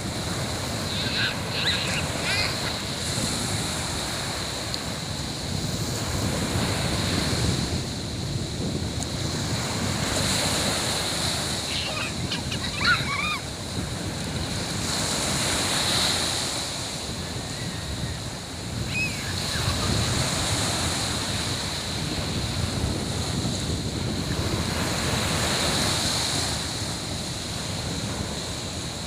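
Sea waves breaking and washing up a beach, swelling and fading every few seconds, with wind buffeting the microphone. Faint distant voices call out briefly near the start and again about halfway through.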